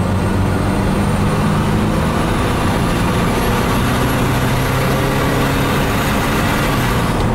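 Turbocharged BMW Z4 engine heard from inside the car under hard acceleration, with road and wind noise. A thin high whistle rises slowly in pitch and drops away near the end. The car gathers speed very slowly, which the drivers put down to a boost leak.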